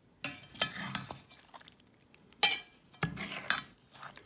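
Large metal spoon stirring through a pot of stew, scraping and clinking against the casserole pot, with several sharp clinks, the loudest about halfway through, and wet squelching of the stew between them.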